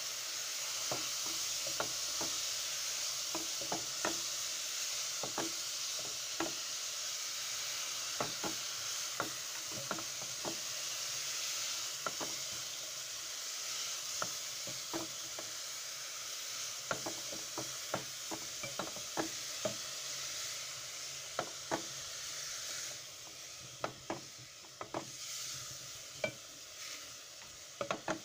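Shredded cabbage sizzling in hot oil in a metal cooking pot, while a wooden spoon stirs it, scraping and knocking against the pot about once or twice a second. The sizzle drops off noticeably near the end, and the knocks carry on.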